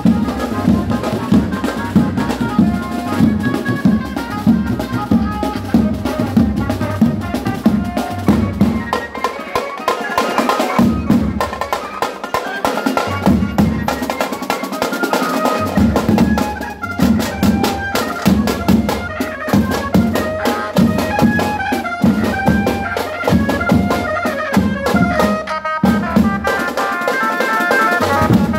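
Street band music: slung drums beaten with sticks in a fast, steady rhythm, with a melody playing on top.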